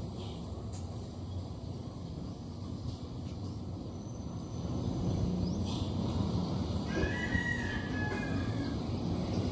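Rooster crowing once, about seven seconds in, over a steady low rumble that grows louder about halfway through.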